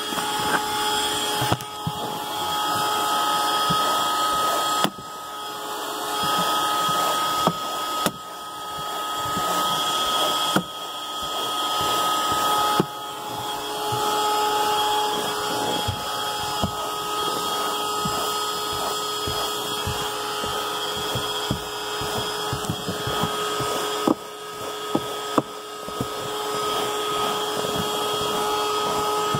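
Vacuum cleaner running with a steady motor whine while its brush nozzle is scrubbed over car carpet. The level drops suddenly every few seconds and climbs back as the nozzle presses down and lifts, with scattered knocks of the nozzle against the seat rails.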